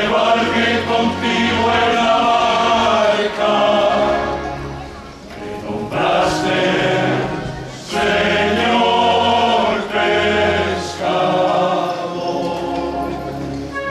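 Church choir singing a hymn, several voices together in long sung phrases with short breaks about five and eight seconds in.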